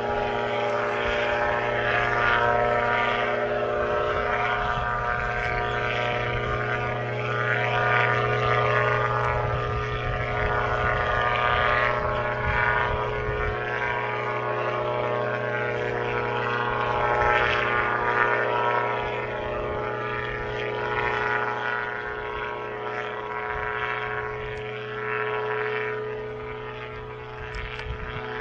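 A powered parachute's engine and propeller in flight, giving a steady drone at an even pitch that fades slightly near the end.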